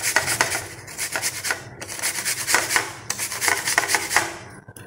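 Peeled apple rubbed back and forth on a stainless steel grater. It makes a quick run of rasping strokes, broken by two short pauses, as the apple is shredded.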